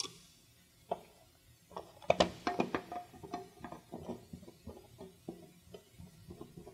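A screwdriver driving a screw through a plastic wall-cover mount into an electrical outlet. A cluster of clicks and scrapes with a short squeak comes about two to three seconds in, then smaller clicks as the screw is turned.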